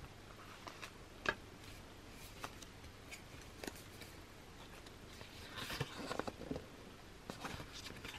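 Soft handling of an album's card cover and paper photobook: scattered light taps and clicks, then rustling as the photobook's pages are turned, in two short bursts in the second half.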